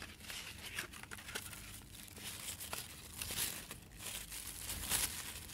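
Tissue paper rustling and crinkling as it is pulled off a wooden bottle opener, with a couple of louder crinkles about three and a half and five seconds in.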